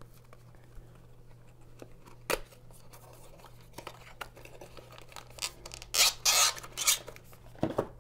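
Small cardboard box being handled and its end flap pulled open, with light scrapes and a sharp tap, then a louder rustling about six seconds in as the Raspberry Pi 2 board in its anti-static bag is slid out of the box.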